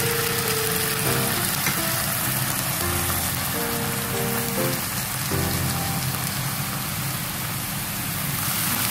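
Beef, mushrooms and shirataki sizzling in a frying pan, a steady hiss. Background music with held notes plays over it.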